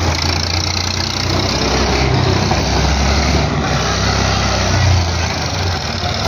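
Diesel engine of a 135 tractor, freshly rebuilt, running steadily with a deep low rumble that swells slightly now and then.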